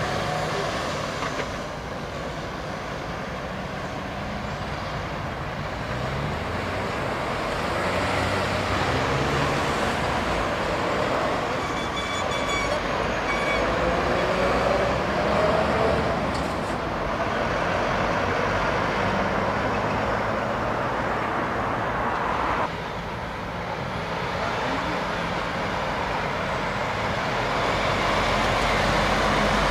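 Heavy trucks' diesel engines running and driving past in continuous lorry traffic. About halfway through, one engine rises in pitch as it pulls away, and the traffic noise drops abruptly a few seconds later.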